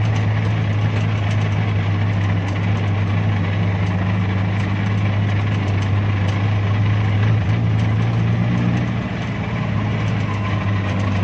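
Suzuki Jimny 4x4's engine running steadily at low revs with a low, even drone, dipping slightly about nine seconds in, with faint scattered ticks over it.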